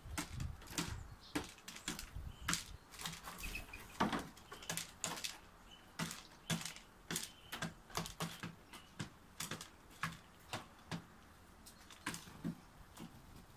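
A dove pecking at seed and food scraps on feeding trays, its beak tapping sharply on the plastic in an irregular run of clicks, about one or two a second.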